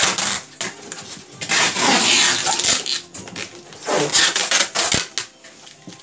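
Packing materials being handled: styrofoam and plastic rubbing and scraping in irregular bursts. The loudest comes from about one and a half to three seconds in, and again about four seconds in.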